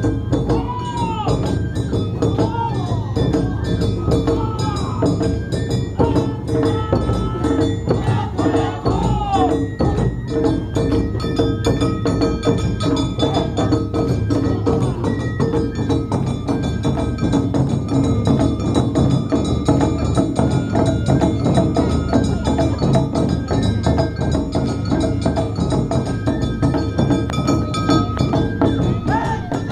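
Live Awa Odori festival music: drums and a clanging metal hand gong beat out a quick, even rhythm under held melody notes.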